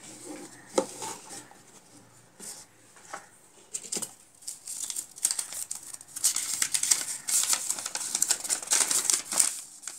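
A few light taps and clicks from a small cardboard watch box being handled, then a folded paper instruction leaflet being unfolded, rustling and crinkling steadily through the second half.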